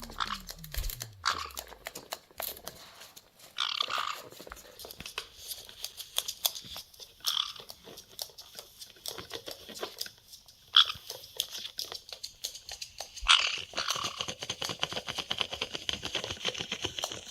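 Caique parrots at play: a steady patter of clicking, scratching and crunching, with a short shrill sound every few seconds.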